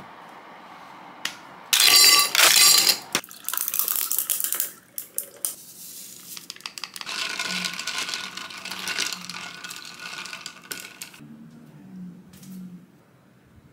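A glass of kombucha being made: a loud clinking clatter into the cup about two seconds in, then liquid poured in and the drink worked in the cup, with scattered clicks.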